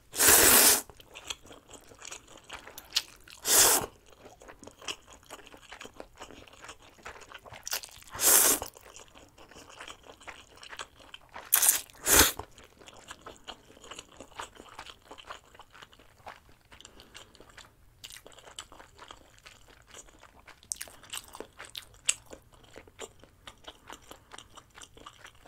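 A person slurping and chewing stir-fried instant noodles close to the microphone. Five loud slurps come in the first half, two of them close together about twelve seconds in. Soft wet chewing clicks run between them and carry on alone through the second half.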